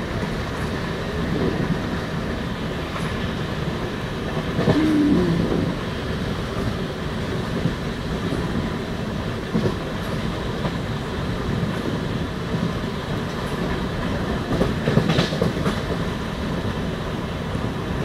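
Passenger train running along the track, heard from inside the carriage by the window: a steady rumble of wheels and rushing air, with a few sharper rail clicks.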